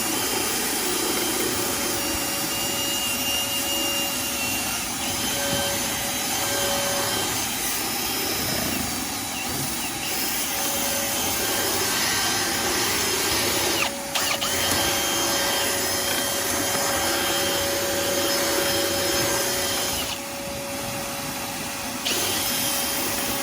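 Power drill spinning flexible vent-cleaning rods with a 4-inch brush through a clothes dryer vent duct, the brush scrubbing out lint buildup, over the steady hum of a running shop vac. The drill stops for a moment about halfway through and eases off for a couple of seconds near the end.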